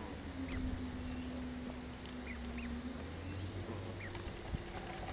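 Barnacle goose goslings peeping: scattered short, high peeps. Under them runs a low, steady engine drone whose pitch falls slightly over the first three seconds.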